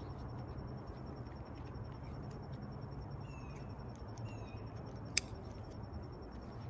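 Faint clicks and handling of packaging as an item is taken out of a box, over a steady low hum. There is one sharp click about five seconds in and two short high chirps a second apart.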